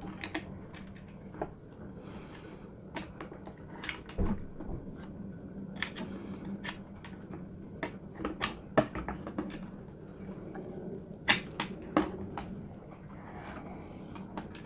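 Scattered small clicks and taps as hands and a screwdriver tip work thin antenna cables and connectors inside the opened plastic case of a DJI Phantom 3 Standard remote controller, with a faint steady hum underneath.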